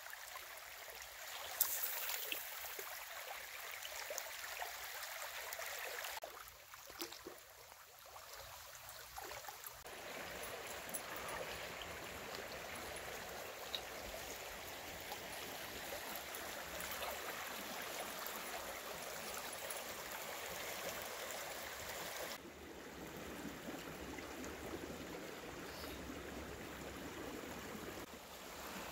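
River water flowing, a steady rush that changes abruptly in tone and level a few times.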